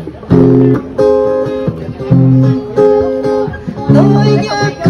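Acoustic guitar strummed in repeated chords, played live as song accompaniment, with a woman's singing voice coming in near the end.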